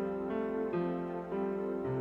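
Calm instrumental background music of held notes that move to a new pitch every half second or so.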